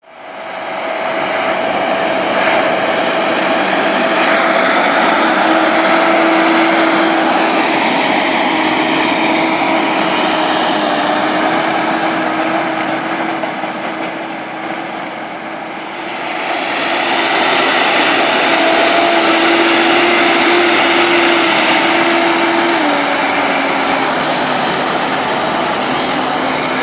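New Holland T8390 tractor's diesel engine working hard at full throttle, pulling a three-furrow plough through the soil, with a steady whine over the engine noise. The sound fades briefly about halfway through, and toward the end the whine drops in pitch as the engine eases.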